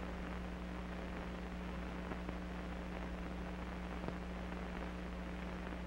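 Steady low electrical hum with hiss, the background noise of an old film soundtrack, with two faint clicks about two and four seconds in.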